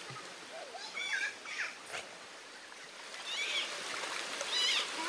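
Children shrieking and squealing in short, high-pitched bursts while playing in a shallow river, over the steady rush of the stream.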